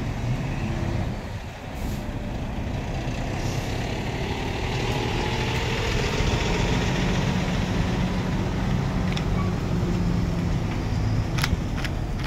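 Heavy diesel engine running steadily while a truck crane hoists a shipping container. A deeper hum sets in about halfway, and there are a few sharp clicks near the end.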